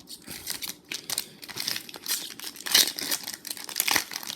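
Crinkling and rustling of booster pack packaging and Magic: The Gathering cards being handled, in irregular crackles with a louder crinkle a little under three seconds in.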